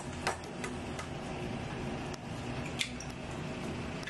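Several light clicks and taps of kitchen things being handled at a counter, the clearest near the start and about three seconds in, over a steady low hum.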